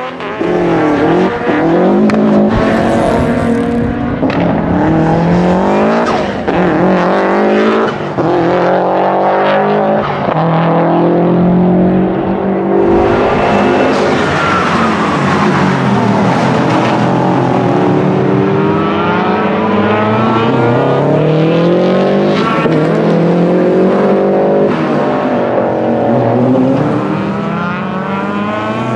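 Subaru Legacy RS Group A rally car's 2.0-litre turbocharged flat-four boxer engine revving hard under full acceleration. Its pitch climbs and drops back at each gear change, again and again, with a few sharp cracks between the runs.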